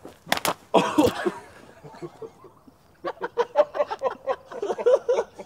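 Men laughing in a run of short bursts, after a loud shout about a second in. Two sharp knocks come just before the shout.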